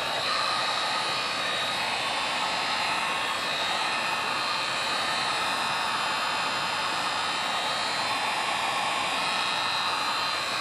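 Electric heat gun running steadily, blowing hot air with a faint motor whine. It is warming the car's ECU to test for a temperature-sensitive ECU fault.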